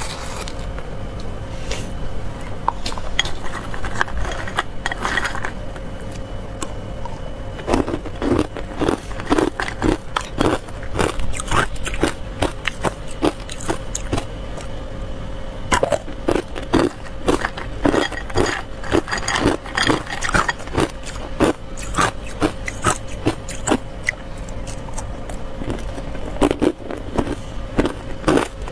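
Ice cubes dusted with matcha powder being bitten and crunched, in runs of sharp cracks, with a metal spoon scraping and clinking against the ice and the glass bowl.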